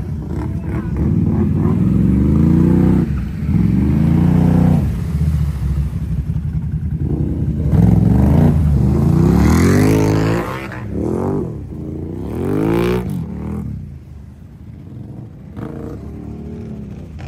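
Can-Am ATV engine revving hard in repeated bursts, rising and falling about five times, as the quad wades through deep muddy water. The engine noise drops to a lower, steadier running about two-thirds of the way through.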